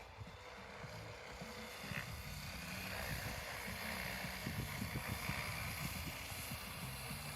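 Align T-Rex 550X electric RC helicopter running, a steady whirring hiss that grows louder about three seconds in, with wind gusting on the microphone.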